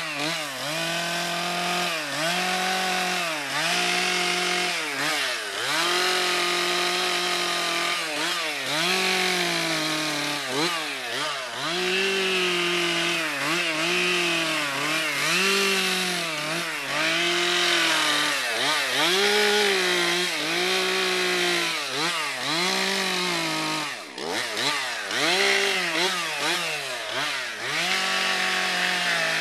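Two-stroke chainsaw cutting into a wooden log for a carving. The engine pitch dips and recovers over and over as the throttle is worked and the chain bites into the wood.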